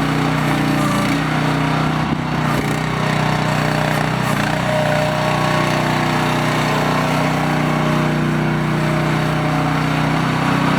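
Mini excavator engine running steadily, with a brief unsettled shift in pitch about two seconds in before it settles again.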